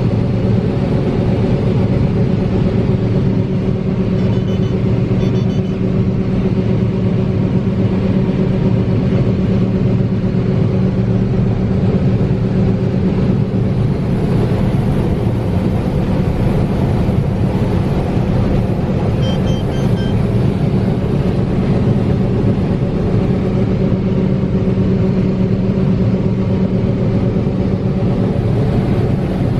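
Large engine running steadily at a constant speed: a loud, even drone with a strong low hum that does not change.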